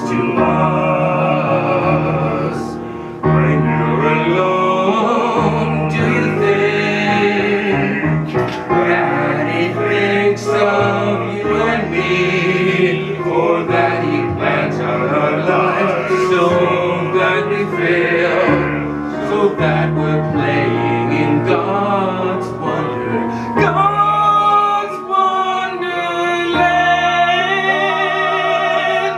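Several men singing a classical-style song together in harmony, accompanied by a keyboard, with long held notes near the end.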